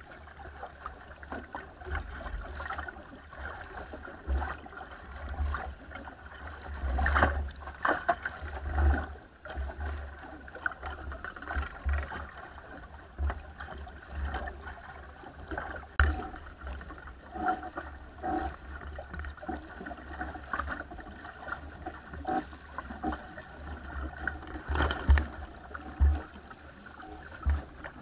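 Water splashing and slapping irregularly against the bow of a small wooden sailing dinghy moving under sail through a chop, with wind rumbling on the microphone. A few harder slaps stand out as the bow meets bigger waves.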